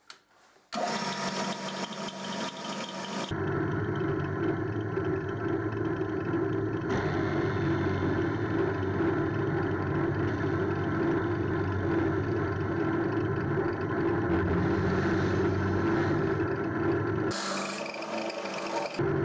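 Drill press running, its twist bit cutting through the plastic dial cover of a bathroom scale: a loud, steady motor hum with the noise of the cut. It starts abruptly about a second in and changes character suddenly a few times.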